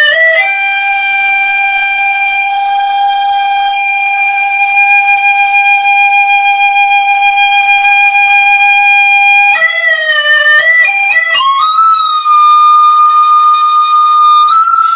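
Hmong raj bamboo flute playing a slow melody: one long held note for most of the time, then a few quick bending notes about ten seconds in that settle onto a higher held note.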